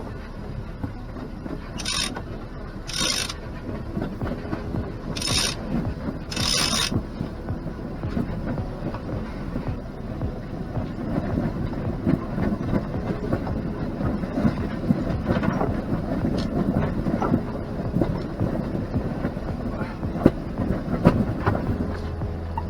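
Mainsail being hoisted on a sailboat: dense, irregular mechanical clicking and rattling from the winch and halyard gear. Four short rushing bursts come in the first seven seconds.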